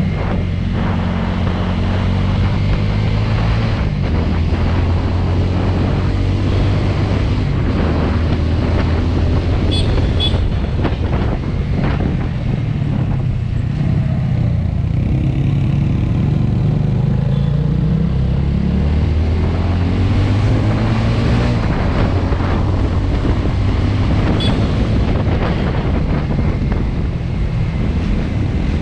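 TVS Apache RTR motorcycle's single-cylinder engine running on the move through hairpin bends, its pitch rising and falling with the throttle, with wind rushing over the microphone.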